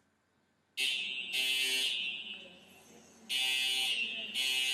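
Simplex ceiling-mounted fire alarm horn strobe sounding, starting about a second in. Its harsh buzzing horn blasts come in pairs with a pause between them.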